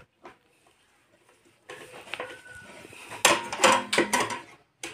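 Screwdriver tightening a screw into a mounting board: scraping and clicking of metal, quiet at first, then a run of sharp clicks and knocks about three seconds in.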